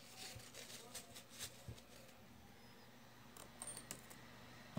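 Faint light clicks and taps of small Abu Garcia baitcasting-reel parts being handled on a workbench, in two short clusters, over a low steady hum.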